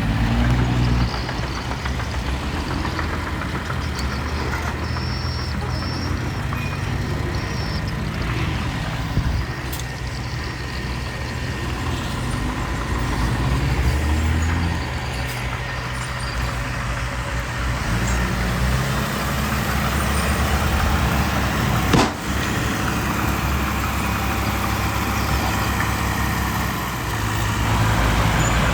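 Diesel engine of heavy earthmoving machinery running, its pitch rising and falling as it works. There is a single sharp knock about 22 seconds in.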